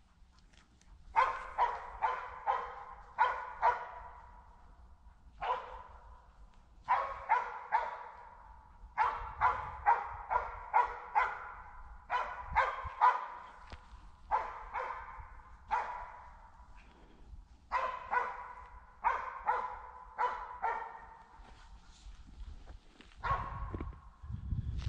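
Hunting dogs barking on a driven wild boar hunt, in repeated bouts of two to five barks each with a short echo, typical of dogs working the game through the forest.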